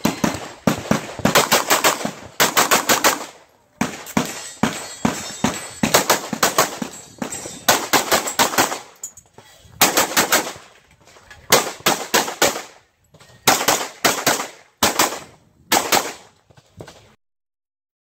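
Rapid strings of pistol shots from a Freedom Gunworks 9mm Major compensated open-class pistol, fired in quick pairs and bursts broken by short pauses, with the shooting stopping near the end.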